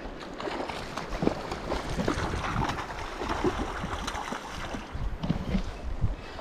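Wind buffeting the microphone over flowing river water, with irregular short knocks and rustles.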